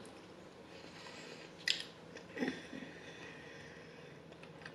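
A person chewing a mouthful of food, faint, with a sharp wet mouth click a little under two seconds in and a softer mouth sound about half a second later.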